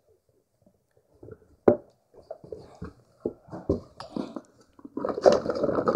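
A hand rummaging through small plastic toy figures in a box: scattered clicks and rattles, with one sharp click a little under two seconds in and busier handling near the end.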